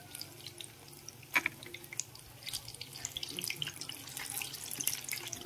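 Wet batter dripping and spattering from a spoon onto a spiral-cut potato, heard as faint small crackles and drips, with a sharp click of the spoon about a second and a half in.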